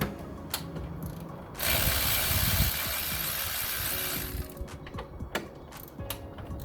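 Ratchet wrench clicking in a fast run for about three seconds, loosening the fasteners of a Honda CR-V's air cleaner box, with a few separate clicks and knocks of tools and parts before and after.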